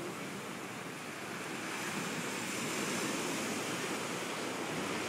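Ocean surf washing in, a steady rush of breaking waves that swells about two seconds in.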